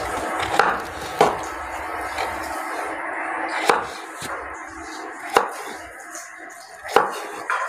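A knife chopping pumpkin into pieces: about five sharp, separate chops a second or two apart, over steady background noise.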